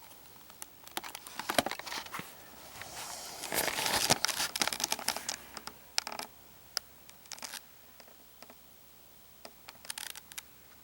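Close rustling and crinkling with scattered sharp clicks, the densest rustle in the middle and a short burst near the end.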